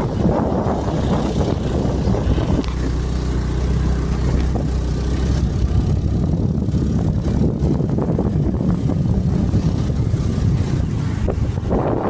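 A vehicle engine running while travelling along a road, with wind rumbling on the microphone. A steady engine hum is clearest between about two and six seconds in.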